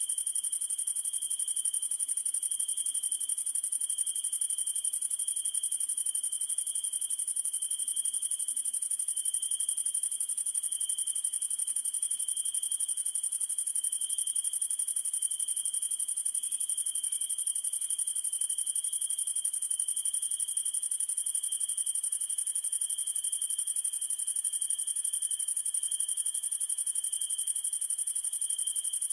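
Summer night insect chorus of crickets trilling without a break: one very high, steady trill over a lower one that swells and fades slightly.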